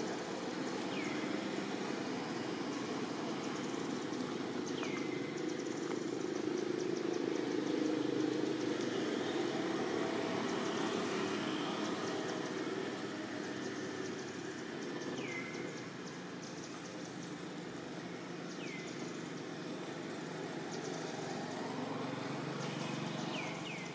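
Outdoor ambience: a steady low hum and hiss that swells a little around the middle, with a short falling chirp heard five times, every few seconds.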